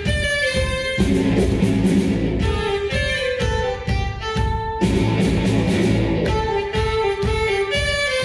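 Live rock band playing an instrumental passage at full volume: electric guitars, bass and drums with a steady beat, and a sustained melody line held over the top.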